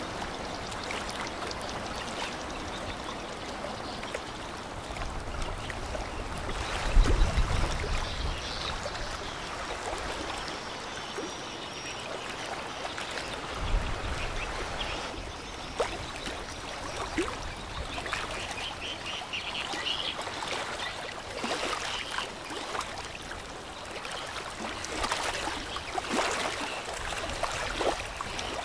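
River water washing and lapping in a steady noise, with a few short bird calls and a couple of low thumps about 7 and 14 seconds in.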